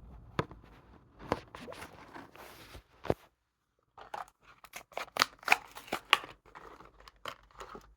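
A Hot Wheels blister card being opened: crackling plastic and cardboard with sharp clicks, a short pause about three seconds in, then a busier run of crinkling.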